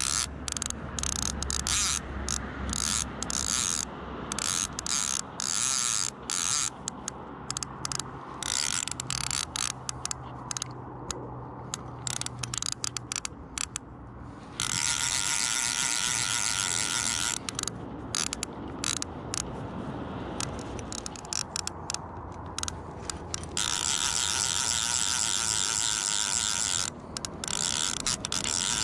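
Fly reel's click-and-pawl ratchet buzzing in irregular bursts as a hooked salmon is played, taking and giving line. Twice the clicking runs together into a steady buzz lasting a few seconds, around halfway and again near the end.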